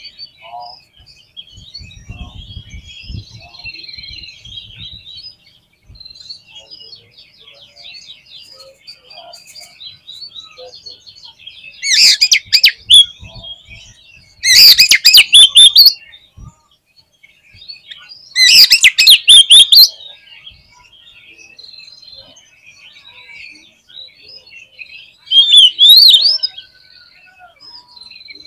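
Oriental magpie-robin singing: a steady stream of quieter chirps and whistles, broken four times by loud bursts of rapid, harsh notes.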